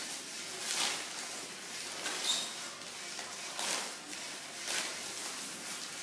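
Crumpled newspaper crinkling and rustling as it is unfolded and spread out by hand, in several short bursts of rustle.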